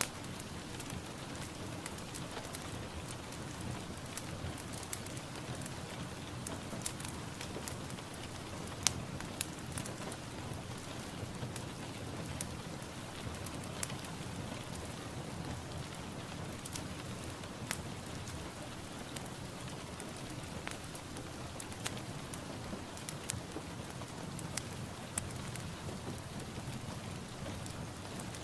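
Steady rain falling, with frequent sharp taps of individual drops scattered through it.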